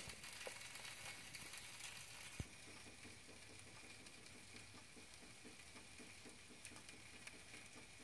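Near silence: faint kitchen room tone with a soft, regular ticking and a single click about two and a half seconds in.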